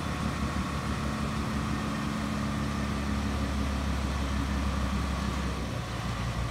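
Ram heavy-duty tow truck's engine idling steadily, its note shifting slightly near the end.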